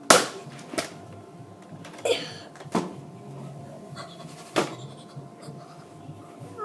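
A toy gun firing with one sharp snap, followed by a few fainter clicks and knocks as it is handled. There is a short breathy sound about two seconds in.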